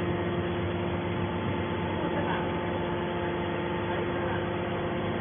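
Steady mechanical hum of running machinery, with several fixed tones and no change in level, and faint voices in the background.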